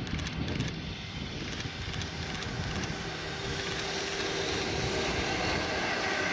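Freight train hauled by an EF66 electric locomotive approaching: a low rumble, then a steady whine that grows louder from about halfway.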